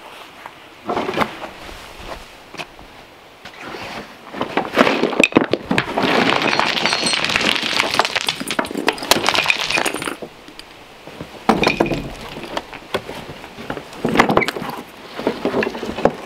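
A cartload of small stones tipped out of a wooden hand cart, clattering and clinking against each other as they spill onto the ground. There is a long spill of several seconds in the middle, then two shorter clatters as the last stones shake loose.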